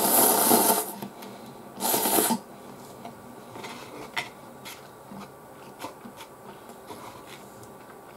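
A person slurping Chicken Ramen instant noodles and soup from a cup: one loud slurp of about a second, a shorter one about two seconds in, then quiet chewing with a few small clicks.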